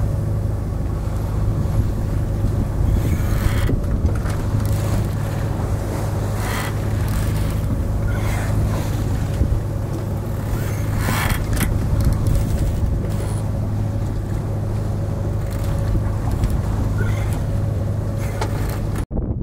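Sailing yacht's inboard engine running at steady revs while motor sailing: a constant hum under a wash of water and wind noise, with a few short hissing rushes over it. The sound drops out for a moment near the end.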